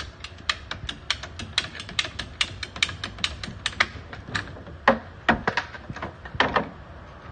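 Ratcheting PVC pipe cutter clicking as it is worked through PVC pipe, about five clicks a second. After about four seconds the clicks thin out and a few come louder.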